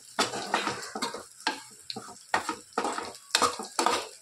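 A metal utensil stirring, scraping and knocking against a tava as roti is tossed in hot spiced oil to crisp, with a light sizzle. The knocks are irregular, about three a second.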